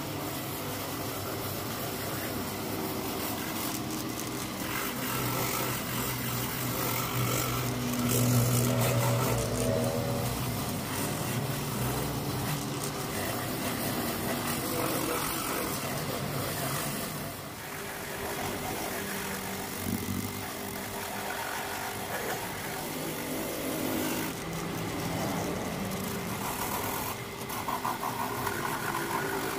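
A handheld rotary buffer running steadily, its abrasive wheel grinding the rubber on the inside of a tractor tyre to prepare it for a patch. Near the end, an angle grinder with an abrasive disc runs against the tyre's outer sidewall.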